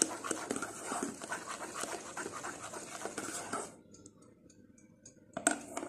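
Silicone whisk stirring freshly cooked chocolate glaze in a stainless steel saucepan: rapid swishing and scraping strokes for about three and a half seconds, then the stirring stops. A short loud sound comes near the end.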